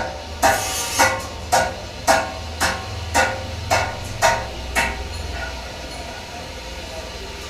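Hammer striking metal about ten times at an even pace of roughly two blows a second, each with a short metallic ring, stopping about five seconds in. A low hum runs underneath.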